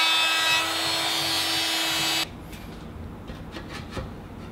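Trim router running at speed and cutting tenon waste in a wooden rail, a steady high whine over a rush of cutting noise. It cuts off suddenly about two seconds in, leaving light clicks and knocks of the wood and tool being handled.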